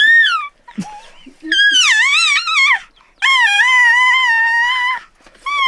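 An infant's high-pitched wailing: a short cry, then two long wavering wails of a second or more each, with another starting near the end.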